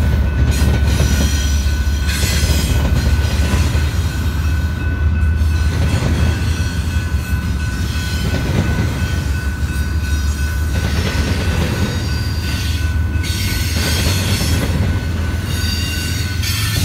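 BNSF freight train passing close by with a steady heavy rumble: the diesel locomotives go past first, then double-stack intermodal container cars rolling by with a thin high wheel squeal and some wheel clatter.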